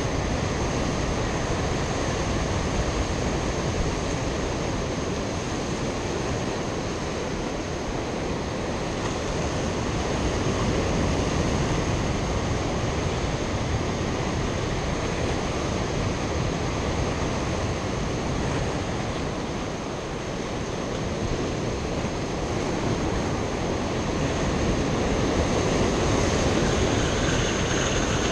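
Ocean surf breaking against a rocky shore: a steady rushing wash that swells and eases slowly.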